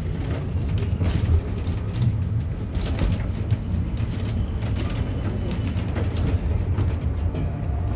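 Cable-hauled funicular car climbing its track, a steady low rumble with a few light clicks.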